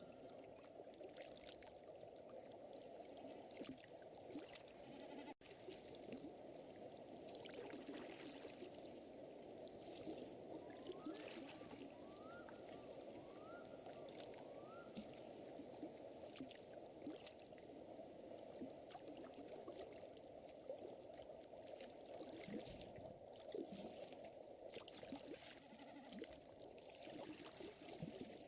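Faint layered lakeside ambience: a steady rush of water with frequent small wood-fire crackles over it. A little before halfway come four short rising chirps about a second apart.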